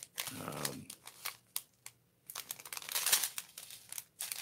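Small plastic baggies of diamond painting drills crinkling as they are picked up and handled, in two stretches with a short lull in the middle.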